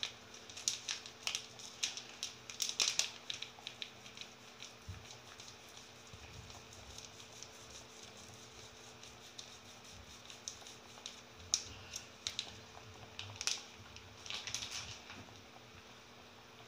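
Plastic curry powder sachet crinkling and tapping against a plastic ladle as the powder is shaken out: a quick run of light clicks at first, then scattered taps and a short cluster near the end.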